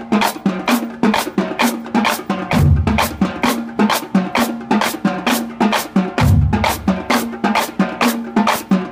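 High school drumline playing a steady cadence: sharp snare strikes about four a second, with a run of deep bass drum hits about every three and a half seconds.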